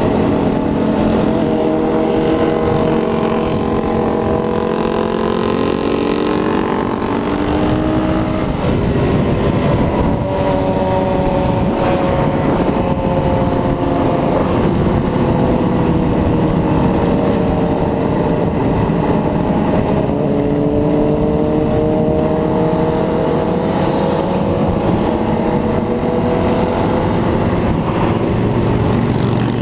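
Yamaha dual-sport motorcycle engine running at highway cruising speed, its pitch rising and falling gently with the throttle, with wind rushing over the helmet-mounted microphone.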